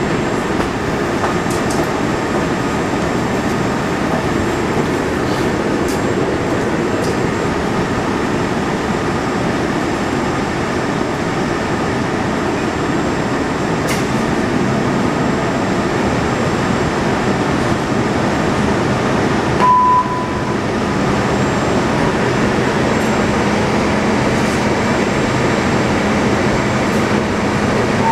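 Steady running noise inside a Moscow metro 81-765.2 car standing at a station platform. About twenty seconds in a short electronic beep sounds, after which a steady low hum sets in.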